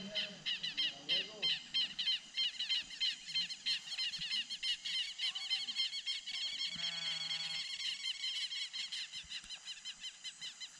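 A chorus of rapid, repeated high chirps from several animals calling over one another, easing off a little toward the end, with a brief lower buzzing call about seven seconds in.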